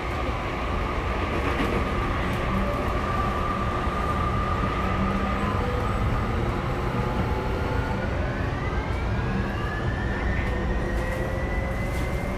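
Tokyu 5050 series electric train running, heard from on board: steady rumble of wheels on the track under the whine of the VVVF inverter and traction motors, whose tones climb in pitch from about eight seconds in as the train picks up speed. The cabin air conditioning is running too.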